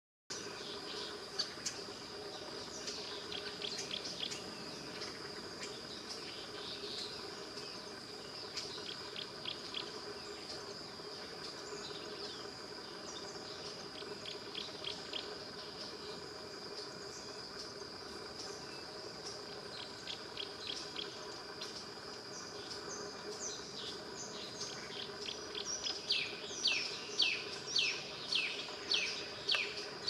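Birds chirping in short, falling notes, scattered at first and then louder and more regular, about two a second, in the last few seconds. A steady high-pitched insect drone runs under the calls.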